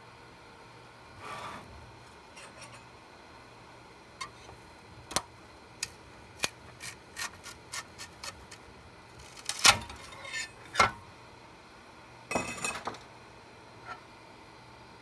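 A large PLA+ 3D-printed spacer being pried and twisted off the Monoprice Maker Select V2's build plate. It gives a string of sharp clicks and cracks as it breaks loose, loudest about ten seconds in, then a short scrape of plastic on the bed near the end.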